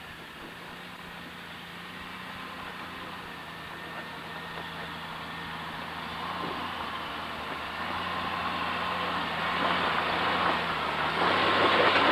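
Jeep Wrangler YJ engine running at low speed as it crawls over a rocky trail toward the microphone, growing steadily louder as it comes close.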